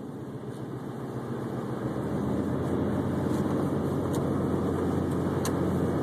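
Road and engine noise inside a moving vehicle's cabin on a snowy highway: a steady rumble with a low hum underneath, growing louder over the first few seconds.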